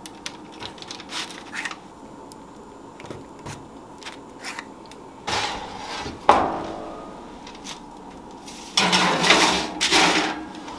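Kitchen baking sounds: light clicks of a plunger mold pressing dough on a baking sheet, then a loud metal clang with a ringing tail about six seconds in, and a longer clattering scrape near the end as a tray of pressed cakes is slid into a gas oven.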